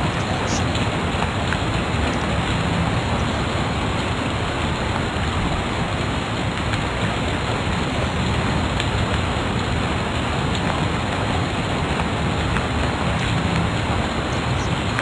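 Steady, even hiss of background noise with a few faint ticks.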